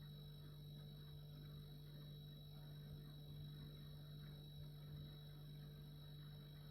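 Refrigerator running: a faint, steady low hum with a thin high whine above it, unchanging throughout.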